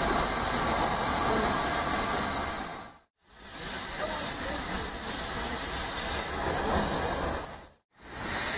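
Steady hiss of steam from GWR Modified Hall 4-6-0 steam locomotive No. 6990 standing with steam up. The hiss cuts out twice into brief silence, about three seconds in and near the end.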